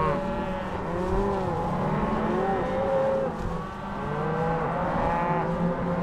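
Many cows bawling at once, their moos overlapping one after another. They are cows calling for calves they have not yet found after being pushed into the pen.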